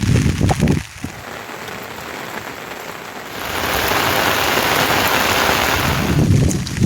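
Heavy rain falling, a steady hiss that grows louder about three and a half seconds in, with low rumbles at the start and near the end.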